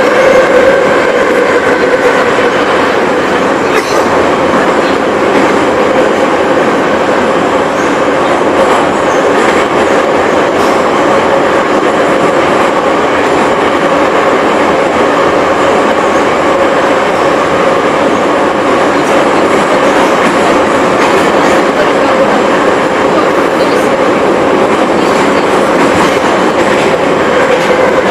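Moscow Metro 81-717/714 subway train running through the tunnel, heard from inside the car: loud steady rolling noise with a steady whine that dips slightly in pitch near the end, and a single click about four seconds in.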